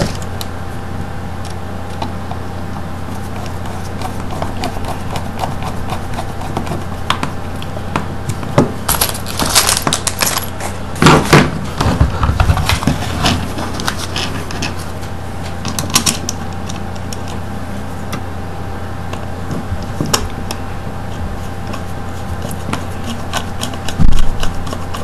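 Scattered clicks, knocks and rattles of hands handling a plastic switch box, loose wires and a screwdriver on a wooden desk, over a steady low hum. A louder cluster of knocks comes in the middle, and one loud knock comes near the end.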